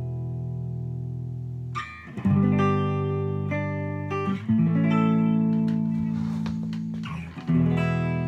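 1962 Framus New Sound semi-hollow electric guitar, amplified, playing slow improvised jazz-blues chords. Each chord is struck and left to ring, with a new one about two, four and a half and seven and a half seconds in.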